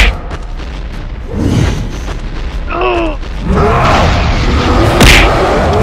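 Cartoon fight sound effects. A heavy impact boom comes at the start, a short cry about three seconds in, then a rumbling crash of debris with a second boom near the end.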